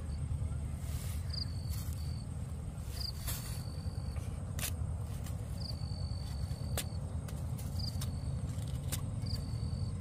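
Outdoor field ambience: a steady low rumble under an insect calling over and over, each call a short chirp followed by a held high whistle, about once a second or so. A few faint clicks sound now and then.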